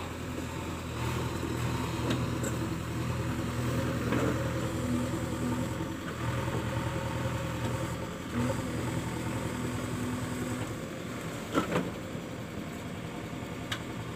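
Heavy diesel engine running steadily, its hum easing off about eleven seconds in. A few sharp clicks near the end.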